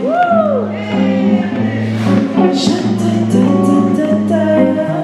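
Woman singing a soulful vocal line live into a handheld microphone over instrumental accompaniment. A voice glides up and back down right at the start, over held low notes that step from pitch to pitch.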